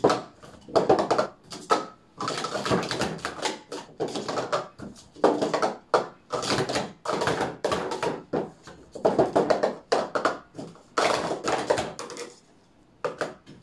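Plastic sport-stacking cups clicking and clattering rapidly against each other and the stacking mat as they are stacked up and down through a cycle sequence; the clatter stops about twelve seconds in, followed by a couple of light taps.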